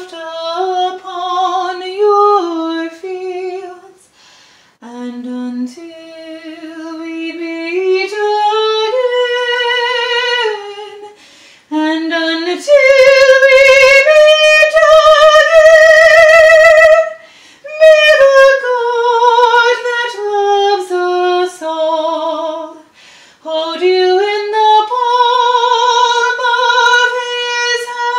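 A woman singing solo in long held notes; about halfway through she holds a high note with strong vibrato, the loudest part.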